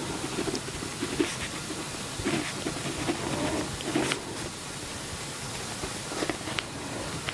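Pen writing on paper in a journal: soft, irregular scratching strokes over a steady hiss.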